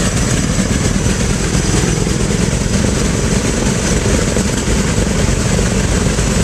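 Wright R-3350 Turbo-Compound 18-cylinder radial engines of a DC-7B: one engine running steadily at idle while the next is turned over on its starter, propeller spinning before it fires. A loud, even, low engine sound throughout.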